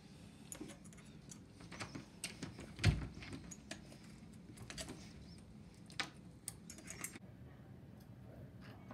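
Small metal clicks and scraping as a bobby pin is worked in the lock of a lever door handle, with the handle rattling. A dull thump about three seconds in is the loudest sound.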